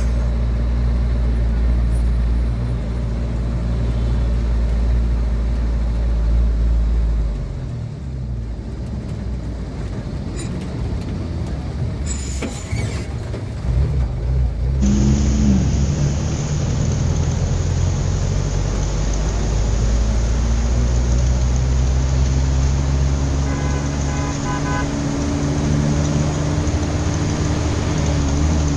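Engine of a moving road vehicle running steadily along a busy city street, in a mix of traffic noise and short horn toots. The engine note rises slowly near the end as it speeds up.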